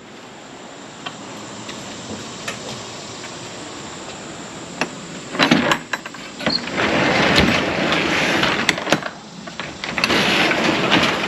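A few scattered footsteps on a wooden deck, then the rear roll-up cargo door of a U-Haul box truck is unlatched and rolled up. The door makes long noisy stretches with a couple of sharp clanks about nine seconds in.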